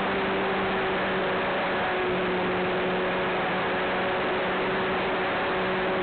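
Cessna 182 piston engine and propeller running steadily in flight, a constant hum of a few even tones over a heavy rush of air noise.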